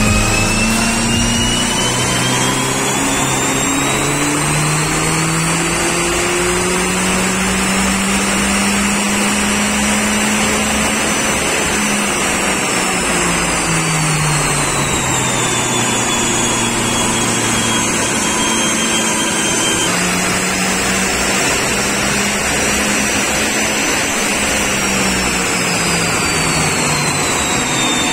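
Perodua Myvi's turbocharged K3 four-cylinder engine running hard under load on a chassis dyno, its pitch climbing and dropping slowly several times as the revs rise and fall, with a high whine following the revs.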